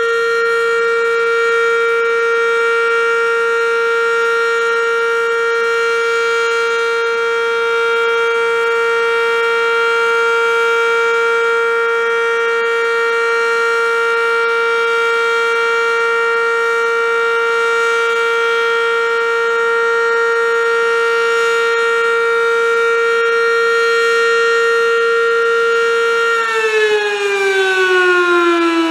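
ASC OM-117 (ACA Banshee) outdoor warning siren sounding a steady alert tone at one held pitch. Near the end it begins to wind down, its pitch falling.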